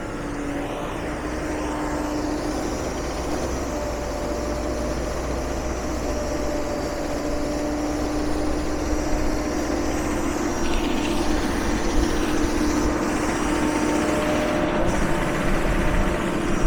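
The engine of a 2006 R.M. Johnson E-Z Crusher log baler running steadily with a constant hum, slowly getting a little louder.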